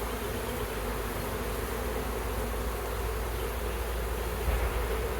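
Honeybees buzzing around an open hive: a steady, even hum of many bees.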